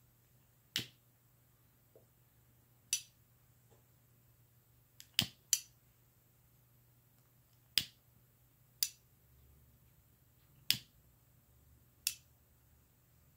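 Lips puffing on a briar tobacco pipe: about eight short, sharp smacking pops as the lips draw on the stem and part from it, unevenly spaced, with two in quick succession near the middle.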